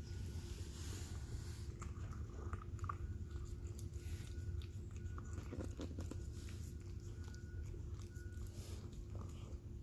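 A cat eating wet cat food: soft chewing and smacking with scattered small clicks, over a steady low hum.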